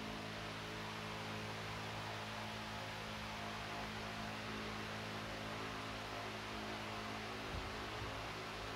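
A steady low hum with a constant hiss behind it.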